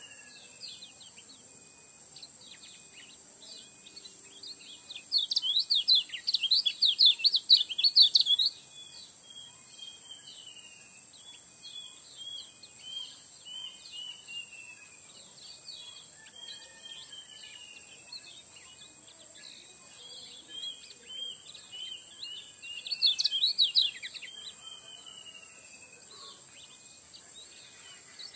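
Kecial kuning white-eye calling: a string of short falling whistles, broken twice by loud bursts of rapid chattering song, about five seconds in for some three seconds and again briefly near the end.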